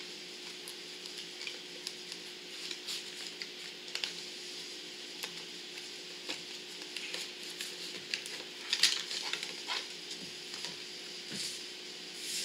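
Small plastic clicks and scrapes as fingers pry and work the auto-darkening filter cartridge loose from a MetalMan welding helmet's shell. The clicking is busiest about nine seconds in.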